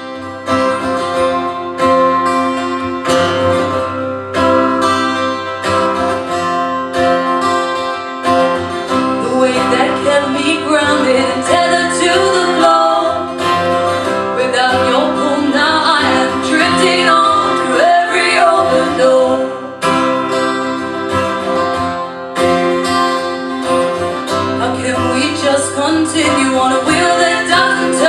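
Live folk song played on strummed acoustic guitar with a steady rhythm; a singing voice comes in about nine seconds in, drops out briefly around twenty seconds, and returns near the end.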